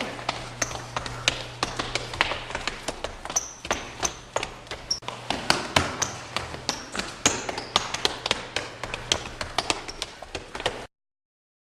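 Rapid, irregular tapping and knocking, several a second, some hits with a brief high metallic ping, over a low steady hum; the sound cuts off abruptly near the end.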